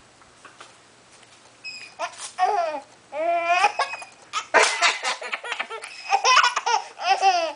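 Baby giggling and laughing in repeated high-pitched bursts, starting about two seconds in, while she has the hiccups.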